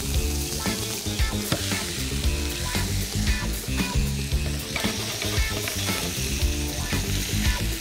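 Grilled herring sizzling on a hot serving platter, a steady hiss, over background music with a steady beat.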